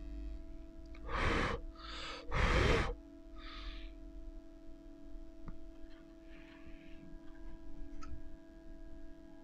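About four short, airy breaths or puffs of air in the first four seconds, the third the loudest, over a steady electrical hum.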